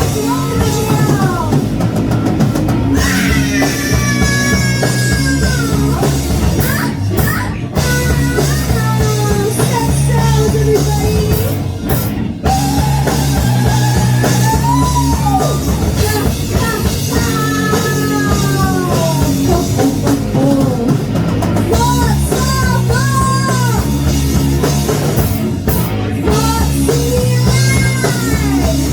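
Live punk rock band playing loud: distorted electric guitar, bass and drum kit driving a steady beat, with a vocalist singing over it.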